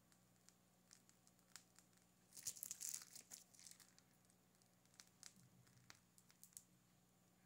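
Faint crinkling and rustling of a plastic piping bag being squeezed, loudest in a cluster about two and a half to three and a half seconds in, with scattered light clicks. A faint steady low hum runs underneath.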